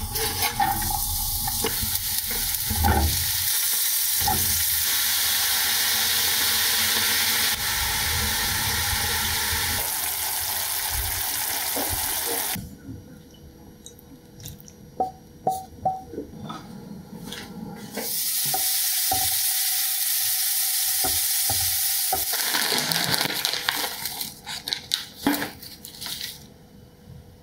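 Garlic and king oyster mushrooms sizzling in a frying pan on a gas burner, stirred with a wooden spatula. The sizzling stops abruptly about twelve seconds in, leaving scattered clicks and taps, and comes back for a few seconds about eighteen seconds in before fading into more clinks near the end.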